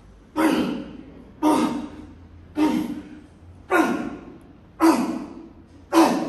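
A weightlifter breathing out hard with each dumbbell rep: six sharp, breathy exhalations about a second apart, each tailing off quickly.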